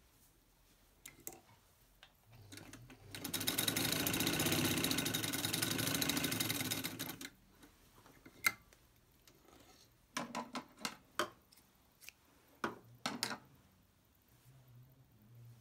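Vintage Singer 66K sewing machine stitching through denim: one steady run of about four seconds that stops abruptly. Several sharp clicks and knocks follow.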